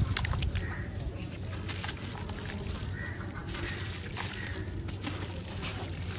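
Wet sand-cement chunks crumbled by hand in a tub of water: water sloshing, with many short gritty crackles and small splashes as pieces break apart and fall in.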